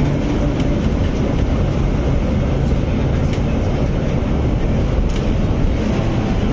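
A 1914 tramcar running along its track, heard from inside its wooden driver's cab: a steady rumble of wheels on the rails with scattered clicks and rattles.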